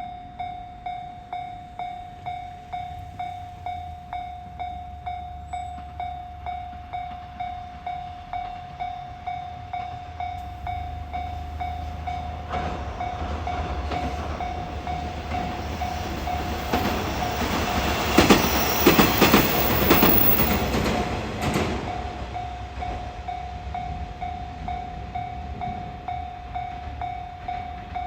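Japanese level-crossing alarm ringing in a steady, repeating electronic ding about one and a half times a second. Meanwhile a train approaches and passes over the crossing, its running noise and wheel clatter loudest a little past the middle, then fading.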